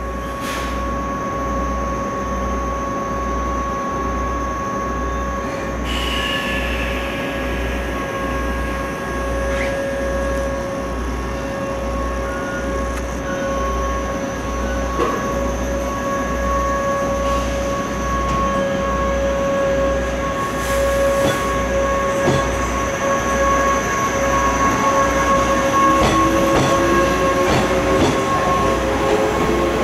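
Standing trains giving a steady hum of several held tones. Over the last few seconds a JR 105-series electric train starts away: its motors make a rising whine and the running noise grows louder.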